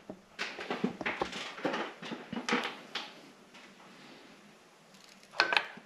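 A scatter of light clicks and knocks over the first few seconds, then a short high-pitched squeak near the end.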